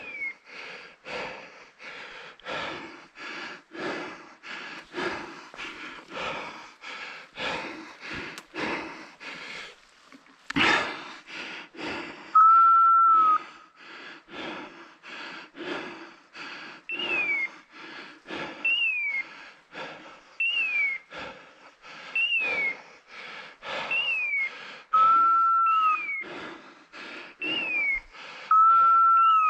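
Footsteps crunching through dry leaves and brush, about two steps a second, with one louder crackle near the middle. From about halfway, short falling whistle-like beeps repeat every second and a half or so, and three held whistle notes of about a second each sound in the second half.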